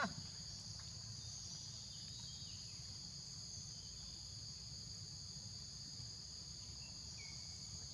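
Steady high-pitched drone of insects, holding two constant tones, over a faint low background hum.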